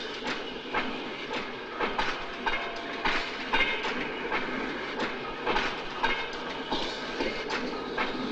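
Railway wheels clattering over rail joints in a steady rhythm, a clack about twice a second over a continuous hiss: a small rail trolley riding along the track.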